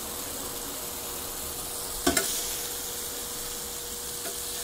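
Bacon and a burger patty sizzling on a steel flat-top griddle, a steady hiss. About two seconds in, a metal spatula clacks sharply against the griddle, with a fainter tap near the end.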